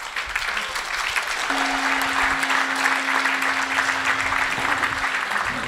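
Audience applauding, with a single steady tone held through the middle of it.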